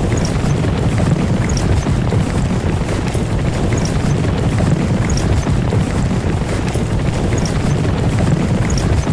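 Horse-drawn carriage moving along: a steady, heavy rumble with hoofbeats.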